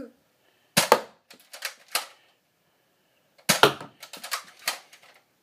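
Nerf blasters firing foam darts: sharp snapping clacks in two clusters, about a second in and again about three and a half seconds in, each led by a loud snap and followed by several lighter clicks.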